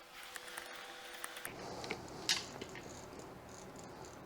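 Faint handling sounds of an electrical tester's probes and stripped wires being worked in a switch box: a few light clicks and rustles, with a sharper click about two seconds in. A faint steady hum stops about one and a half seconds in.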